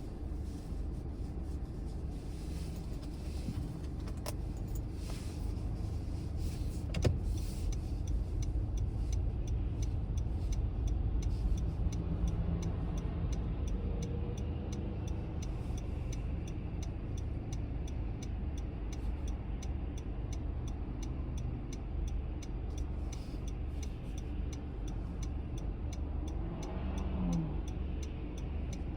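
A car driving, with steady engine and tyre rumble. From about a third of the way in there is a regular light ticking.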